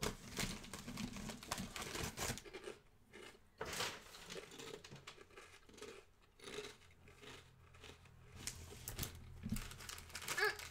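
Crunchy snack chips being chewed close to the microphone: irregular crisp crunches and crackles, with a few louder crunches.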